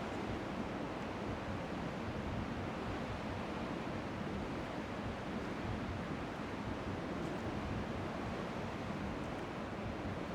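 Strong wind on the microphone making a steady rushing noise, with faint waves lapping on the shore underneath.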